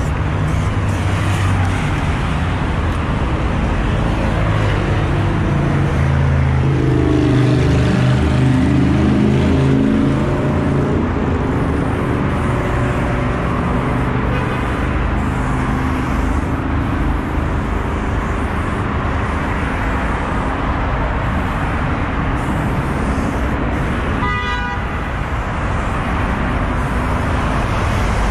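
Steady road traffic noise. A vehicle engine drones past from about six to eleven seconds in, and a short car horn toot sounds near the end.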